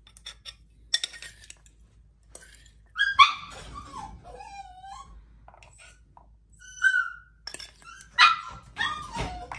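A dog whining and yelping in high cries that slide up and down in pitch, impatient for its food, with light clicks and clinks of a metal spoon on a ceramic bowl.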